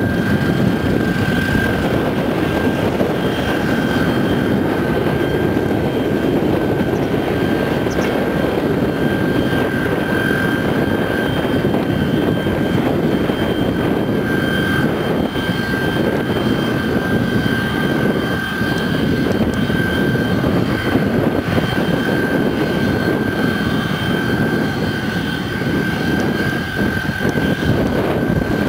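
Jet engines of a rear-engined airliner taxiing: a steady rumble with a high turbine whine held on one pitch.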